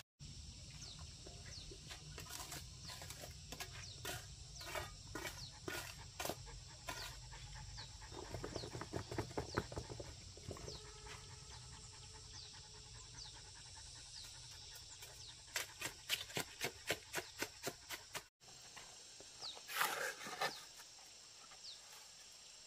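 A dog panting, with scattered sharp clicks and taps that come in quick runs twice, over faint high chirps.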